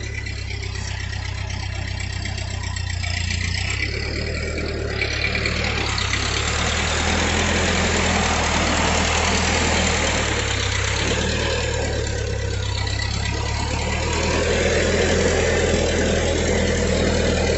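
Farm tractor engine running steadily at low revs, with a broader rushing noise building from about five seconds in.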